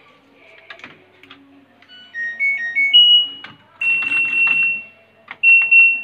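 LG front-loading washing machine's control panel playing its short electronic tune of stepped beeps as it is switched on, followed by two longer beeps with clicks of its buttons being pressed.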